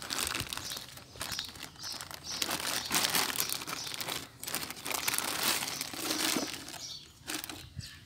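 Thin clear plastic bag crinkling and rustling in irregular bursts as hands work a car speaker out of it, dying down near the end.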